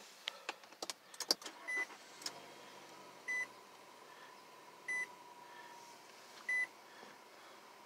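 Cold start of a Nissan Altima: a few clicks, then the engine catches with a faint low rumble and settles to a quiet idle. Over it, a dashboard warning chime beeps four times, about once every second and a half.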